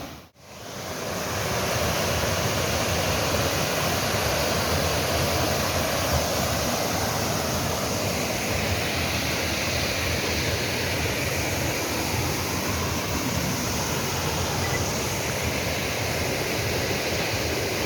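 Small waterfall's water rushing steadily. The sound cuts out briefly right at the start, then comes back up within about a second.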